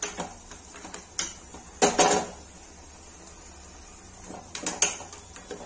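Metal cookware handled on the stove: a steel spoon and pans clink and clatter in a few separate knocks, the loudest pair about two seconds in and another cluster near the end, over a steady low hum.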